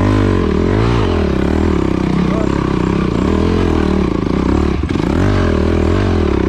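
Old Honda enduro motorcycle engine running and revving up and down repeatedly as the bike pulls away along a rough trail.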